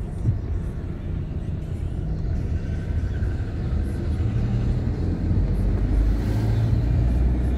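Car engine and road noise heard from inside the cabin while driving: a steady low rumble that grows somewhat louder toward the end.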